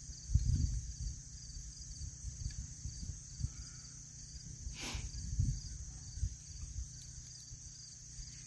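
Insects chirping steadily in a rapid, even pulse, with low rumbles on the microphone that are strongest near the start. About five seconds in there is one brief sharp noise.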